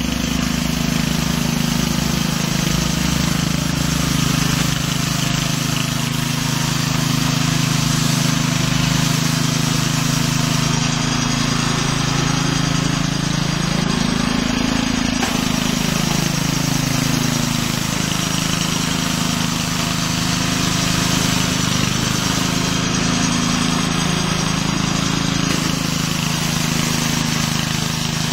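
Small engine of a walk-behind radial-brush sweeper running steadily, with the rotating brush head scrubbing over asphalt. The engine pitch shifts up and back a couple of times as the load changes.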